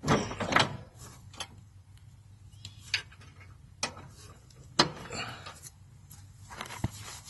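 Metal clinks and knocks of a riding mower's steel deck linkage rod being worked into its bracket: a quick cluster of sharp clicks at the start, then single clicks about every second.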